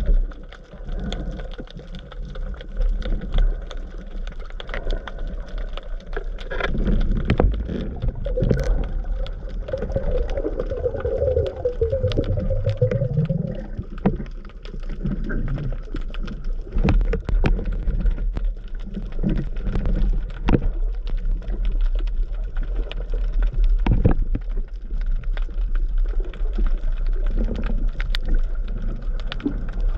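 Muffled underwater sound heard through a camera's waterproof housing: a constant low rumble of moving water with many scattered sharp clicks and crackles, and a brief rising tone around the middle.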